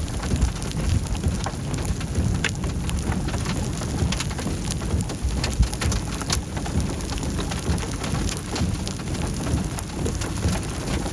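Rain falling steadily, with many separate sharp drop strikes throughout, over a steady low rumble.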